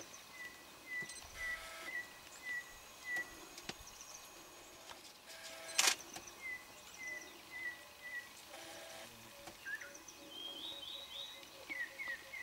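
Short, high chirping animal calls in evenly spaced runs of about two a second, with a few quick rising chirps near the end. A single sharp click about six seconds in.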